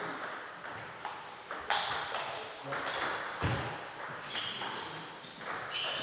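Table tennis rally: the ball clicking sharply off bats and table, about two hits a second. A heavier low thud about three and a half seconds in.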